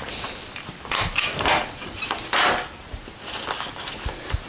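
Heavy-duty reflective silver tarp crinkling and rustling in several short bursts as it is folded over and pushed into place by hand.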